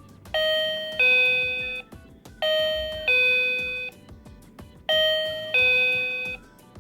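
A battery-powered infrared motion-sensor doorbell's electronic chime plays a two-note ding-dong, a higher note then a lower one, each ringing and fading. It sounds three times, about two and a half seconds apart, set off by movement in front of the sensor.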